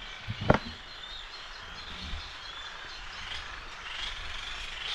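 Many birds chirping and calling together without a break, with one brief knock about half a second in.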